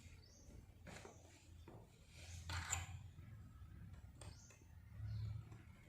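Faint handling noises from cleaning lint out of a sewing machine's shuttle area: a few light clicks and a short scrape about two and a half seconds in, over a low steady hum.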